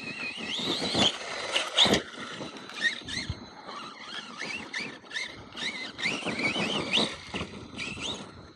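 RC monster truck's motor whining up and down in pitch as the throttle is worked, with several thumps and crunches as it hits and bounces over dirt. The loudest thumps come about one and two seconds in and again near seven seconds.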